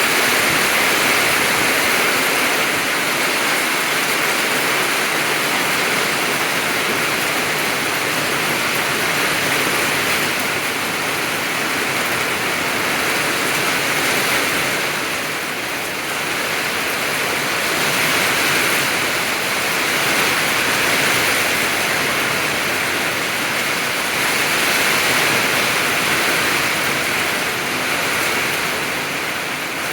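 Heavy rain pouring down in a steady downpour, its hiss swelling and easing gently every few seconds.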